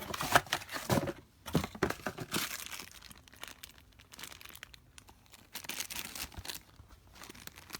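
Packaging rustling and crinkling as it is handled while unpacking an adapter from a product box, in irregular bursts, busiest in the first couple of seconds and fainter after.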